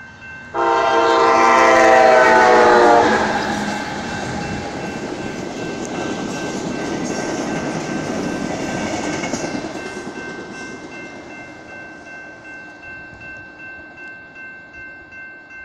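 Amtrak Talgo passenger train sounding one long horn blast of about two and a half seconds for the grade crossing, dropping in pitch at its end as the locomotive passes. The horn is followed by the rush and rumble of the train's cars rolling past, which swells and then fades as the train moves away.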